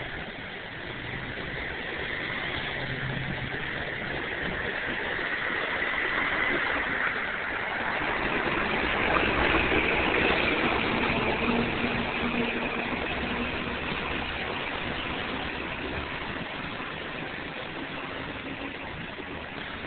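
Steady engine and traffic noise that grows louder to a peak about halfway through, then eases off.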